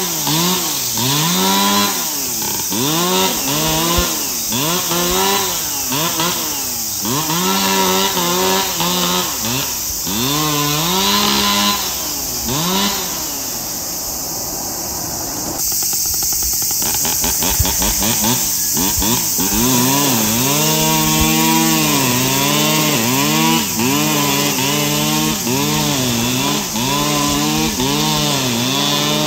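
Two-stroke brush cutter with a nylon-cord head cutting grass. Its engine revs up and falls back about once a second, over and over. About halfway through it drops to a low idle for several seconds, then revs back up and holds high with brief dips.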